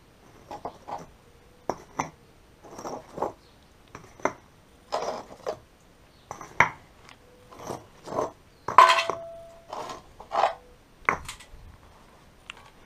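Concrete paving blocks being worked loose and lifted out of a laid row by hand: irregular clacks of block against block and gritty scrapes on sand. The loudest clack comes about nine seconds in, followed by a brief ring.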